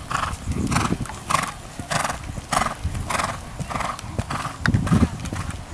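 Horse cantering on sand arena footing: hoofbeats with a blowing breath on each stride, a little under two strides a second.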